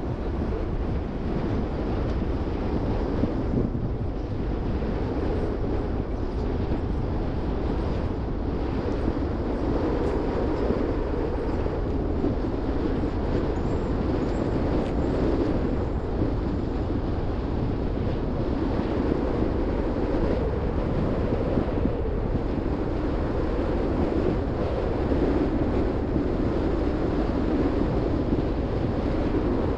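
Car driving along at a steady pace: continuous tyre and road noise with some wind noise.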